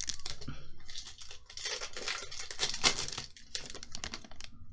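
Pokémon trading cards and their foil booster-pack wrapper being handled: crinkling and rustling in short bursts, with a sharp click about three seconds in.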